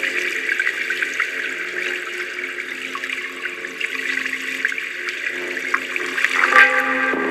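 Running water trickling and bubbling steadily, with a few steady low tones held beneath it. Near the end a louder, fuller sound swells in.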